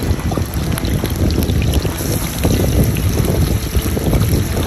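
Wind buffeting the microphone: a loud, uneven rush, deepest in the low end, with no let-up.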